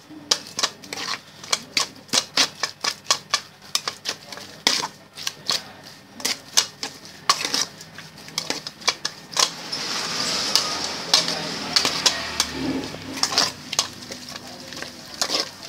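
A spoon clacking and scraping against an aluminium pot as cooked enoki mushrooms are tossed with their seasoning, a quick run of clicks about three a second. About two-thirds through there is a stretch of steadier scraping.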